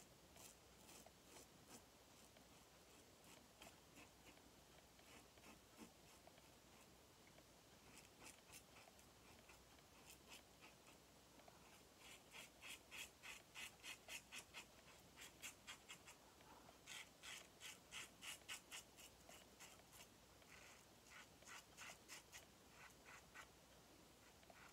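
Safety razor (Yaqi Katana head with a Bic blade) scraping through lathered stubble in short quick strokes, about three a second: a faint rasping, busiest in runs through the middle.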